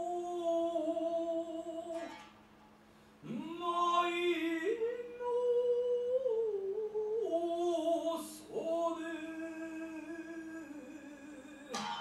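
Biwa-katari chant: a singer draws out long held notes that step slowly in pitch, pauses briefly, then slides up into a new phrase about three seconds in. Two sharp plucks of the biwa ring out, one about eight seconds in and one at the very end.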